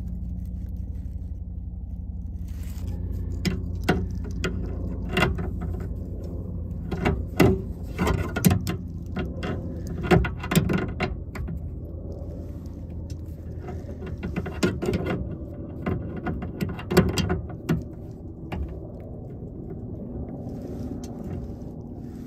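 Tongue-and-groove pliers tightening a brass flare nut on a copper LP gas line: irregular metallic clicks and scrapes as the jaws grip and turn the fitting, over a steady low rumble.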